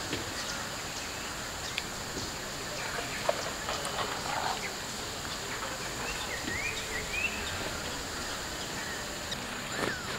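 Outdoor ambience in green woodland: a steady high hiss with a few short rising bird chirps past the middle and scattered light clicks.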